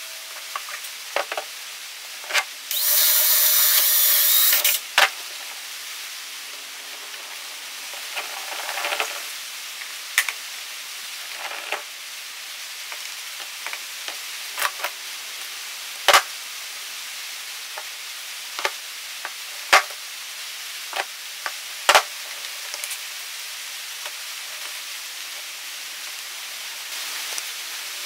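Workshop handling noise: scattered clicks and knocks of tools and parts. About three seconds in comes one loud hissing burst lasting about two seconds, with a weaker one near nine seconds.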